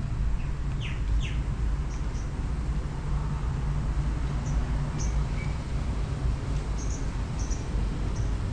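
Small birds chirping in short, high calls, two quick downward-sweeping notes about a second in and scattered brief chirps after, over a steady low rumble.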